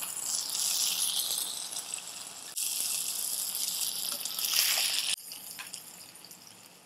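Hot biryani sizzling in a nonstick pan on the gas flame, a steady hiss while it is spooned out, which cuts off abruptly about five seconds in, leaving only faint sounds.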